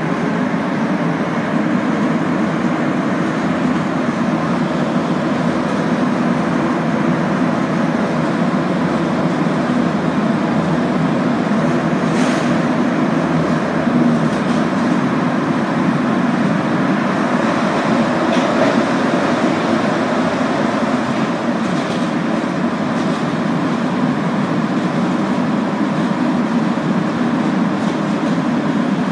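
Montreal Metro Azur rubber-tyred train heard from inside the car, running steadily through the tunnel between stations. It makes a steady rumble with a low hum. A faint click comes about twelve seconds in.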